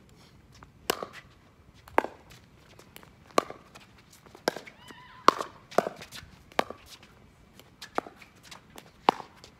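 Pickleball rally: sharp pocks of paddles striking the hollow plastic ball, and the ball bouncing, about one a second with some hits much louder than others.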